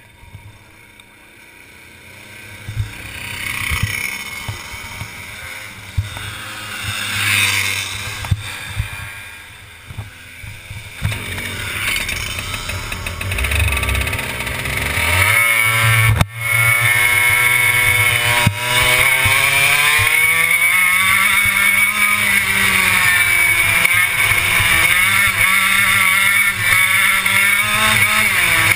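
Racing kart engine heard from on board. Through the first half there is quieter engine noise that swells and fades; about halfway in the kart's own engine revs up sharply and then runs loud, its pitch rising and falling as it accelerates and lifts off through the corners.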